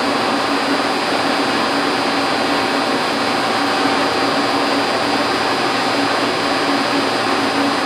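Steady machine whir: a motor running continuously with an even rushing noise and a low hum, without change.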